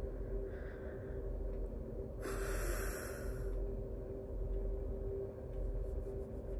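A woman's audible breath, one long noisy breath about two seconds in lasting over a second, with a fainter breath before it, over a steady low hum.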